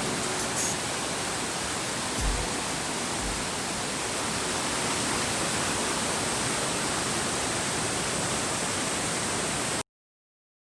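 Steady rushing of a waterfall, cutting off abruptly near the end.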